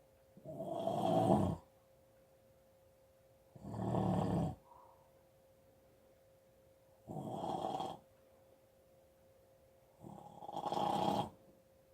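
Snoring: four long snores, one every three to three and a half seconds, with quiet breathing gaps between them.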